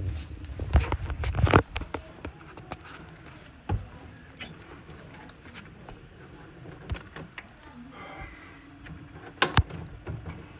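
Irregular clicks, knocks and rattles of hands and tools working on a furnace, likely the mounting of its ignition control board. A cluster of louder knocks comes in the first two seconds and another pair about nine and a half seconds in.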